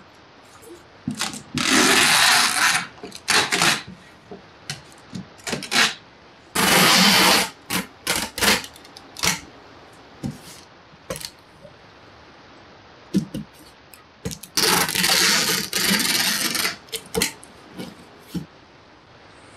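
Clear packing tape being pulled off a handheld tape dispenser and pressed onto a cardboard box: three long pulls of a second or two each, with shorter pulls, tape tears and knocks against the box in between.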